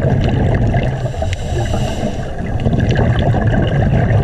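Underwater bubbling and gurgling of scuba exhaust bubbles over a steady low rumble.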